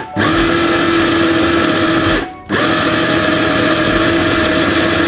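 Electric food processor's motor running at a steady pitch, grinding minced mutton with spices, herbs and bread into kebab mixture. It cuts out for a moment a little over two seconds in, then starts again.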